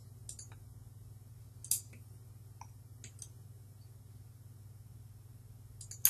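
A few scattered computer mouse clicks, the loudest a little under two seconds in, over a steady low background hum.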